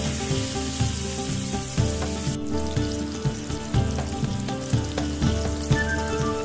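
Button mushrooms sizzling as they fry in hot oil in a pan, a steady crackling hiss that briefly drops out about two and a half seconds in. Background music with a steady beat plays under the sizzle.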